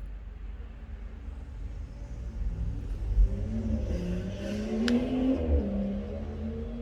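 A motor vehicle's engine revs up, its pitch bending and rumble swelling, then fades away. There is one sharp click about five seconds in.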